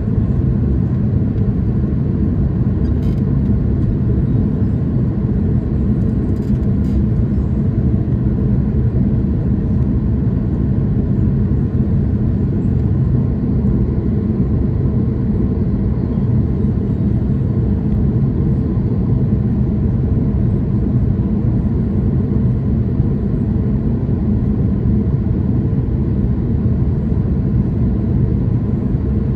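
Steady low rumble of a jet airliner in flight, heard from inside the cabin: the engines and the rush of air over the fuselage.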